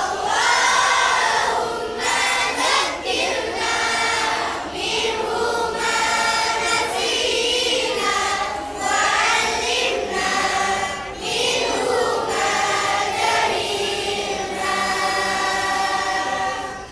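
A group of children singing together. The singing starts at once and stops abruptly just before the end.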